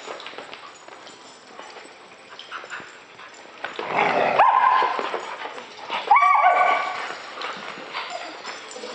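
Dogs playing, with a dog giving two drawn-out, whining yelps, about four seconds in and again about six seconds in.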